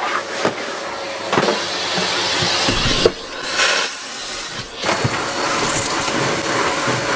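Canister vacuum cleaner running, a steady rushing suction noise with a faint motor whine, shifting as the nozzle is moved over the floor and broken by a few short dips.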